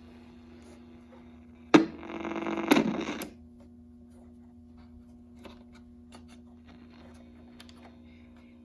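Vintage Craig AM/FM clock radio: a switch click, then about a second and a half of loud buzzing that stops suddenly, over a steady low hum from the set. A few faint clicks follow.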